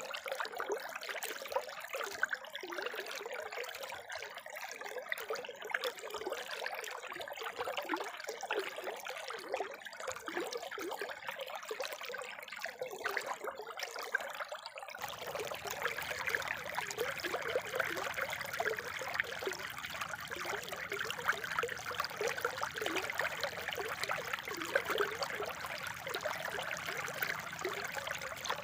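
Water from a spring trickling and splashing steadily. About halfway through the sound changes abruptly to a fuller, denser flow.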